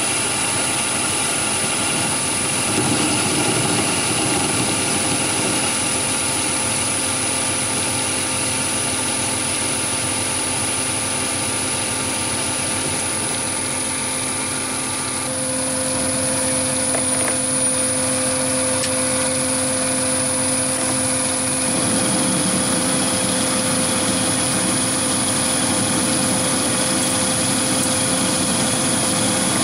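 Chinese mini lathe running, turning a long taper in mild steel while a small DC motor drives the compound slide to feed the tool. A steady machine whine made of several steady tones, whose mix shifts about halfway through and again about two-thirds through.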